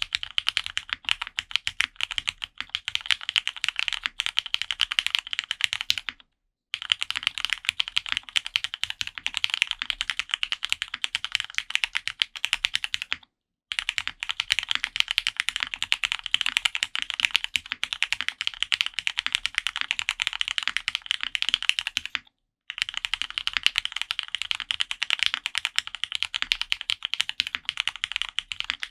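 Continuous fast typing on a custom F1-8X polycarbonate mechanical keyboard with Cherry Nixie switches lubed with Krytox 205g0 and Linworks Burgundy keycaps, a dense run of crisp key clacks. It breaks off to silence three times, briefly.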